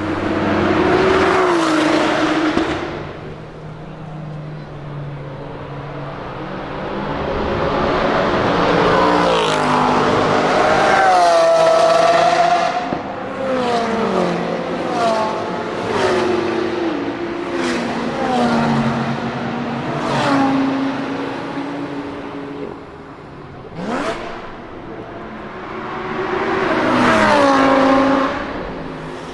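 Several supercars drive past one after another at full throttle on a race-track straight. Each engine note rises as the car approaches and drops in pitch as it goes by, and one car makes a run of quick upshifts as it pulls away. Late on there is a single sharp bang.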